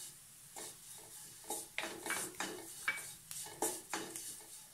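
Wooden spatula stirring and scraping fried onion masala and fresh curry leaves around a nonstick pan: short scrapes about twice a second over a light sizzle of frying.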